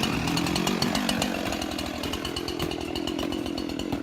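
Husqvarna two-stroke chainsaw running steadily after a choke start.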